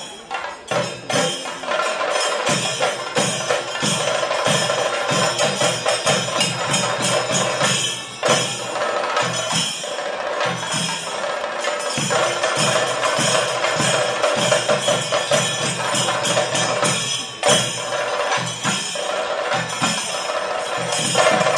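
Kerala temple percussion: chenda drums struck with sticks in dense, rapid strokes, with small cymbals clashing, easing briefly about eight and seventeen seconds in.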